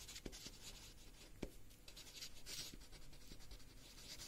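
Pen writing on paper: faint, short scratching strokes in irregular bursts as words are written out.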